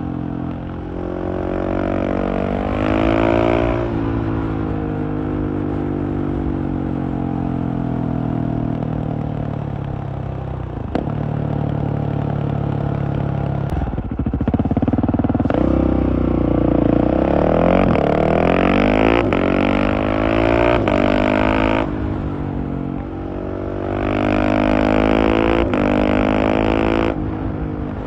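Husqvarna 701's single-cylinder engine through a LeoVince Nero exhaust, accelerating with the pitch climbing and dropping at quickshifted upshifts, then rolling off and falling away, several times over. The hardest pull comes in the second half, with quick breaks at the gear changes.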